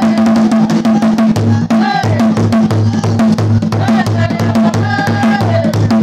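Loud drumming with a steady, even beat, and voices singing over it.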